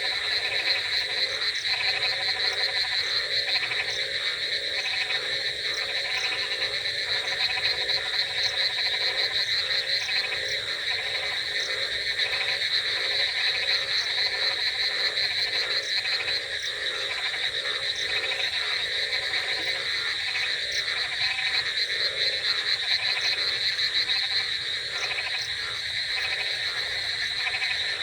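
Dense chorus of many frogs croaking, their calls overlapping without a break: low pulsing croaks under a steady high trilling.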